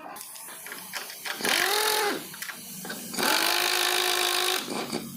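Power tool motor run twice in short bursts, the first spinning up and down in pitch and the second held steady for about a second and a half.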